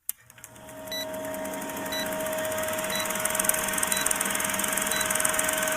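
Song intro fading in: a steady held tone with a short high beep about once a second over a fast ticking rhythm.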